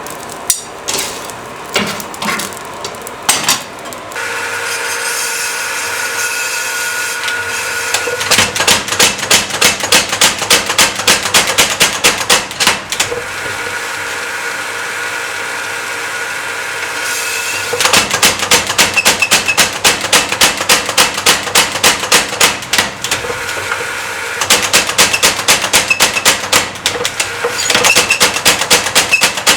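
Three runs of rapid, evenly paced hammer blows on hot steel, about five strikes a second. Between the runs there is a steady rushing noise. A few separate knocks come at the start.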